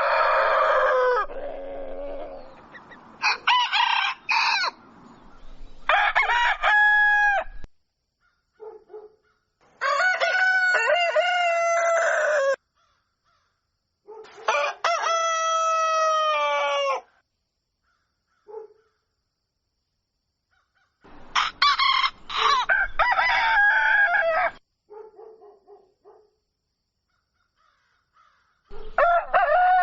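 Roosters crowing cock-a-doodle-doo: about six long crows with silent gaps between them, and a few short clucks in the pauses.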